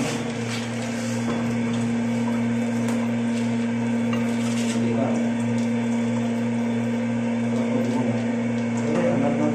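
Water pouring from an inlet pipe and splashing into a concrete water tank, with a steady electric hum underneath.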